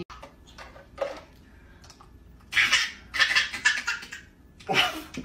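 A baby laughing in loud, breathy bursts, twice in quick succession about halfway through and again near the end. A few light clicks of plastic toy pieces come in the first couple of seconds.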